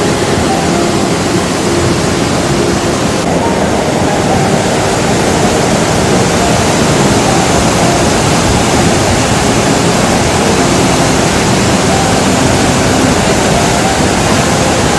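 Flash-flood torrent rushing through a valley: a loud, steady rush of churning water.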